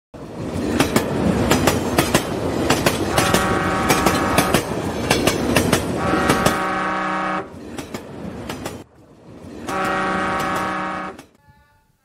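Train sound effect: wheels clattering over the rails, with three long chord-like train horn blasts. The clatter fades out, and the last blast sounds on its own near the end.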